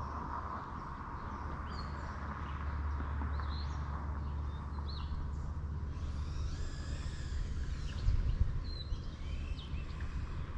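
Outdoor ambience: birds chirping over a steady low rumble, with a brief low thump about eight seconds in.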